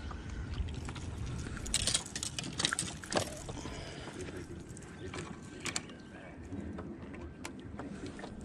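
Scattered clicks and small knocks from a spinning rod and reel being handled, over a low rumble of wind on the microphone in the first couple of seconds.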